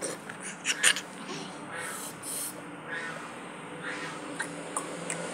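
A metal spoon knocks twice on a hard plastic table top near the start, then short scattered calls sound in the background over a faint steady hum.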